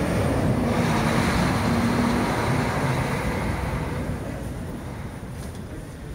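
A semi-truck drives past on a snowy street, its diesel engine and tyres making a steady rushing drone with a low engine note. The sound fades from about two seconds in as the truck pulls away.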